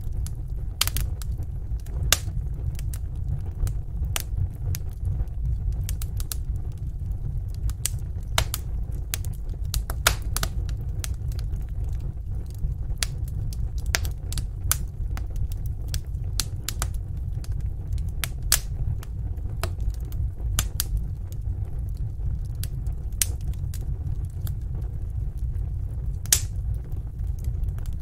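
Wood fire burning in a fireplace, crackling with irregular sharp pops and snaps over a steady low rumble of the flames. Several louder pops stand out among the smaller crackles.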